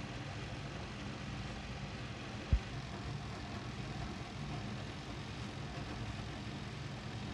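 Electric toaster oven running, a steady low hum, with a single low thump about two and a half seconds in.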